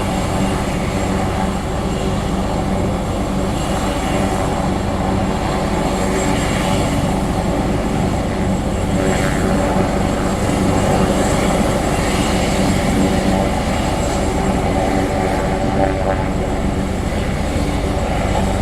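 Helicopter running steadily, its rotor blades beating in a fast, even chop.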